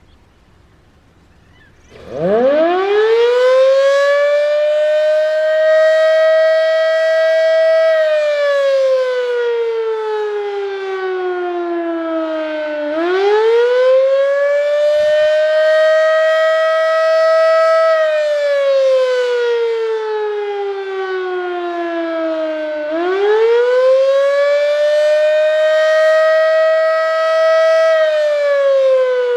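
Darley 3V8 fire siren winding up sharply about two seconds in, then wailing: it holds a high pitch for several seconds, slides down, and climbs back up, about three times over.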